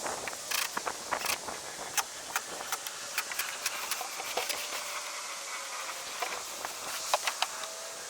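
Irregular sharp clicks and knocks over a steady hiss, thicker in the first few seconds and again near the end.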